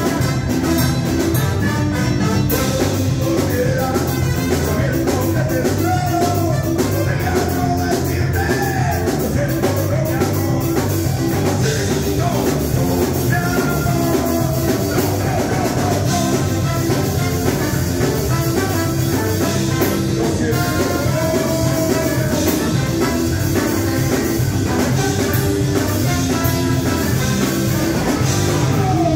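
Live ska band playing, with a brass section of trombones and trumpet over electric bass, electric guitar and a drum kit.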